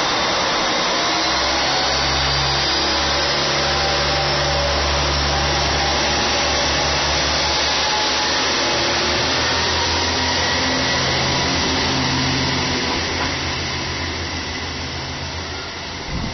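Two-car KiHa 40-series diesel railcar train pulling away from the platform: the diesel engines run hard with slowly rising whines as it accelerates, and the noise fades over the last few seconds as it moves off.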